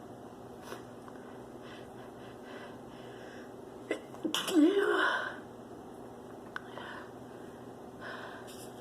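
A woman sneezes once, about halfway through: a quick catch of breath, then a loud voiced burst. This is an allergy sneeze. Faint breaths and sniffs come before and after it.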